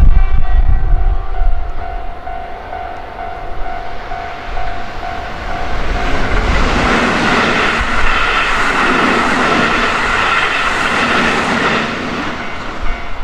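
Keihan electric train passing close by, its wheels running loud on the rails from about six seconds in. Before that, a steady high tone is heard.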